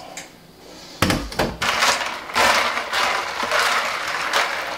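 A stainless-steel colander set down in a steel sink with a knock about a second in, then a hand stirring blanched peas through ice water in a glass bowl: a busy swishing, sloshing sound with many small clicks of ice and peas.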